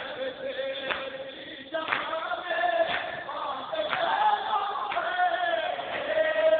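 Male voices chanting a noha, a Shia lament, in unison, over the mourners' matam: hands striking chests in a steady beat about once a second.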